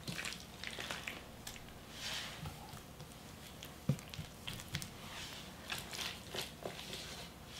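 Gloved hands spreading and pressing wet, seasoned radish kimchi filling onto salted napa cabbage leaves: irregular sticky squishes and rustles, with a few short clicks, one sharper about four seconds in.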